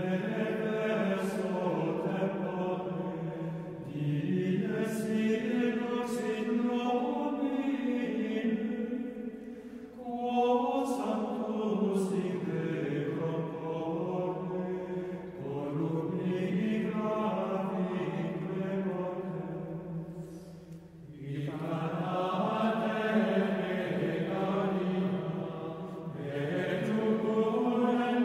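Plainchant sung in unison by men's voices, in slow phrases of several seconds separated by short breaths.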